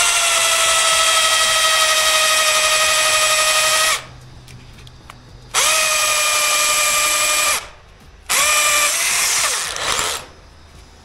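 Electric drill boring through a house wall for a cable run, in three runs with short pauses: a steady high-pitched motor whine that winds down at the end of each run.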